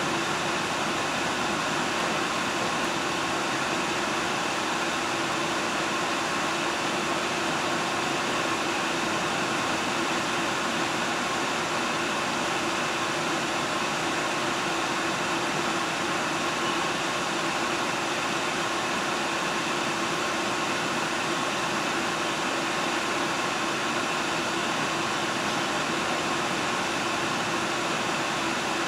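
Steady running noise inside a diesel train's passenger cabin on the move: an even hiss with a low steady hum that stays unchanged throughout.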